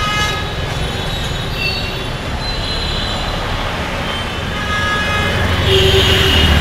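Road traffic of buses, auto-rickshaws and motorbikes running along a city road, a steady rumble that grows louder near the end as a bus passes close.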